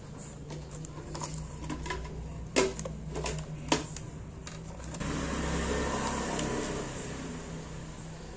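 Sharp clicks and knocks of hard plastic as the blender's base housing is handled and pried apart, the loudest two about a second apart, over a steady low hum. About five seconds in, a broader rushing noise swells up for a couple of seconds and fades.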